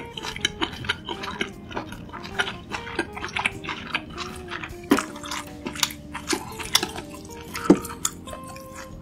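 Close-miked chewing of a big mouthful of food: a rapid run of crunches and clicks, several a second, over soft plucked-guitar background music.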